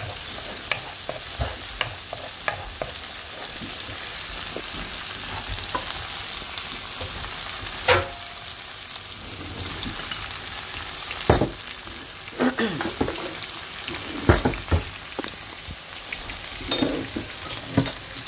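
Chopped onion and tomatoes sizzling in hot oil in a frying pan, stirred with a wooden spoon that knocks and scrapes against the pan now and then, with sharper knocks about 8, 11 and 14 seconds in.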